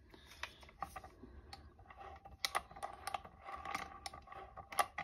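Irregular light clicking and clatter from the RCA J-2 record changer's mechanism being worked by hand: its gears, cam and switch contacts moving, with a faint steady tone underneath from about halfway in.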